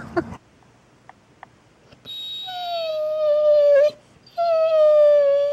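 A chocolate Labrador retriever whining in two long, drawn-out calls about two seconds each, the pitch sagging slightly through each one.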